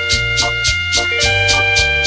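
Electronic keyboard instrumental of an old Taiwanese song: held melody notes over bass and a steady drum-machine beat of about four ticks a second.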